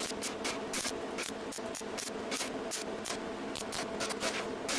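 Gas-shielded MIG welder running solid wire, laying a weld on a stainless steel exhaust pipe. The arc makes a steady sizzling hiss broken by rapid, irregular crackles.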